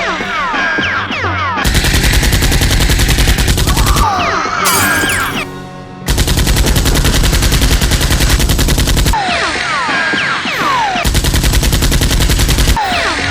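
Three long bursts of rapid machine-gun fire, a sound effect dubbed onto a Nerf battle scene, over background music with falling whistle-like glides in the pauses between bursts.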